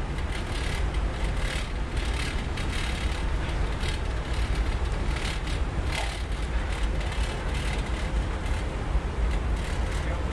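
Wind buffeting the microphone: a steady, rumbling roar with gusty surges of hiss.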